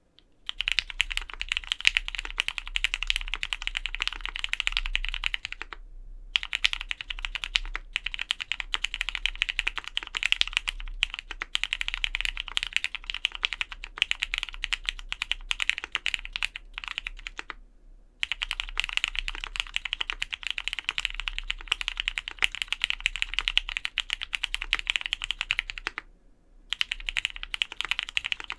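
Continuous fast typing on a Vega custom mechanical keyboard with lubed, broken-in Cherry Black Hyperglide linear switches, an aluminium plate and GMK keycaps, dampened with PCB-plate foam and one layer of case foam. The keystrokes come in quick, dense runs with a few short breaks.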